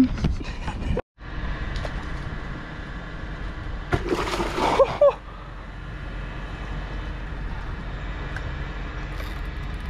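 Water sloshing with a steady outdoor rumble, and a short burst of splashing about four seconds in. The sound cuts out completely for a moment about a second in.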